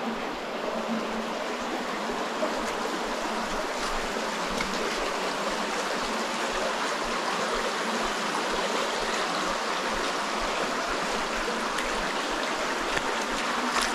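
Shallow rocky stream running steadily over stones, an even rushing of water.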